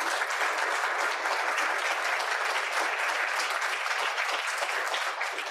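Audience applauding: dense, steady clapping that begins to taper off near the end.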